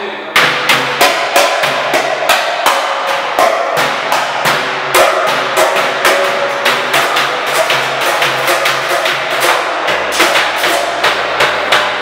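Galvanized metal trash can beaten with wooden drumsticks like a drum, a fast rhythmic run of sharp, ringing metallic hits, about three a second.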